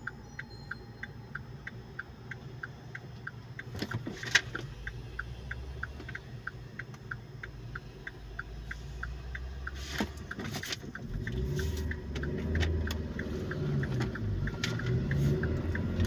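Opel Vectra C's turn-signal indicator ticking evenly, about three clicks a second, over the engine idling. From about eleven seconds in the engine note rises and grows louder as the car pulls away.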